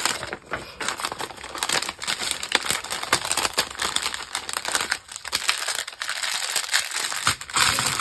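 Clear plastic bags of diamond painting drills crinkling as they are handled, an irregular crackle that goes on throughout.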